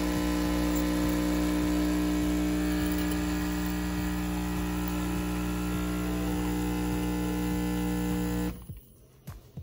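Espresso machine's pump humming steadily as it pulls a shot of espresso, then cutting off suddenly near the end, followed by a couple of small clicks.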